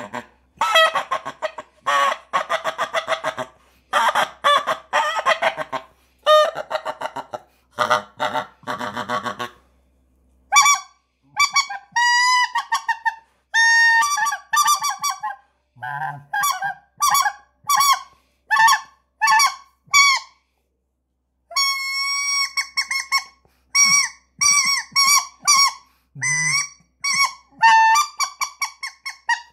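Breite 62 'Corrector' combination mouth-blown goose call sounding series of goose honks. For about the first ten seconds the calls are lower and buzzier, in quick runs. Then come higher, clearer honks in rhythmic strings, with a pause of about a second around two-thirds of the way through.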